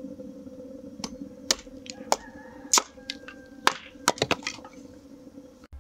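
Hatchet chopping wood on a wooden chopping stump: a string of sharp, irregular cracks as the blade bites and the wood splits, over a steady low hum.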